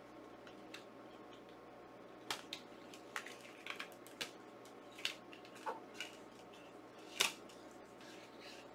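Plastic disc case and its packaging being handled: a run of light clicks and rustles, the sharpest about seven seconds in.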